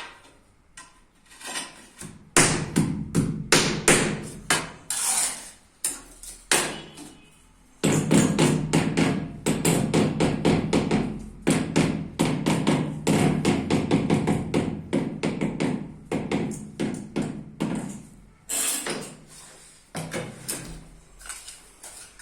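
A mallet tapping ceramic floor tiles to bed them, in quick runs of strikes. The strikes are scattered at first, come thick and fast in the middle, and thin out near the end.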